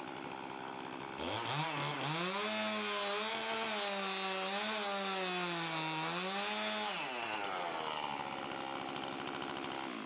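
Stihl MS 291 two-stroke chainsaw on an Alaskan-style Granberg Mini Mill revving up about a second in and running at high revs through a pine log, its pitch wavering under the load of the cut. About seven seconds in the revs fall away and the saw runs on more quietly as the cut ends.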